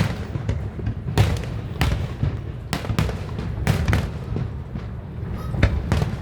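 Fireworks going off: a string of sharp bangs, irregular but roughly one a second, over a steady low rumble.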